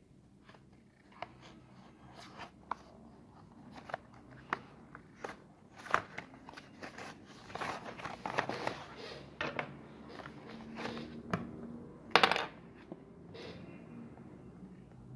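A small cardboard product box being handled and opened by hand: sharp taps and clicks of fingers and nails on the card, rustling of the flaps, and a short loud rasp of cardboard about twelve seconds in.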